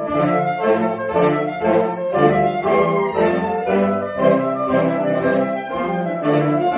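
Saxophone ensemble of soprano, alto, tenor and baritone saxophones with a few clarinets playing together in chords, with a steady beat of about two notes a second.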